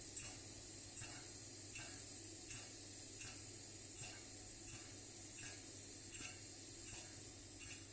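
Kerosene stove burner hissing steadily, broken by a soft regular hiccup about every three-quarters of a second.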